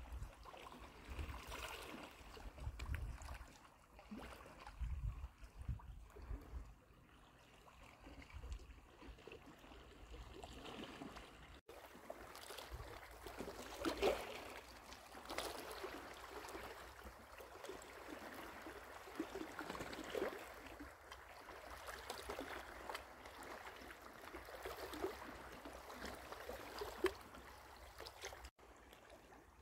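Small sea waves lapping and splashing gently at a rocky shore, an irregular watery wash. Low rumbling comes in bursts during roughly the first ten seconds.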